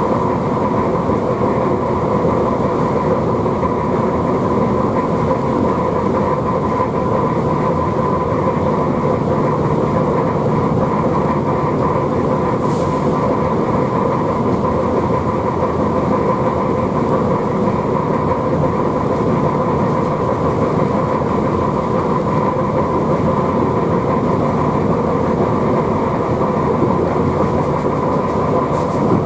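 Steady running noise of a ČD class 121 electric locomotive travelling at speed, heard from inside its cab: a constant rumble with a steady whine over it.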